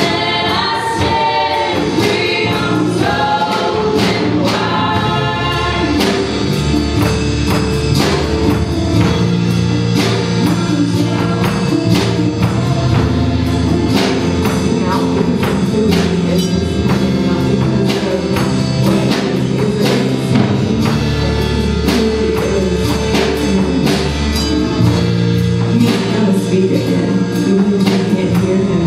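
Live worship band playing a song: voices singing over acoustic guitar, keyboard and a drum kit, with a steady drum beat. The singing stands out most in the first several seconds, then the band carries on with the voices lower.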